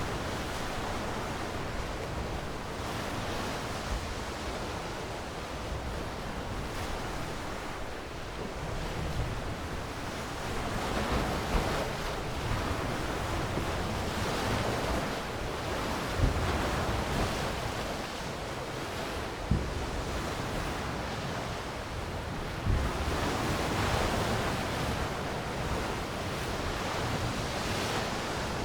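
Ocean waves washing on a shore, a steady rush that swells and eases every few seconds, with a few brief low thumps.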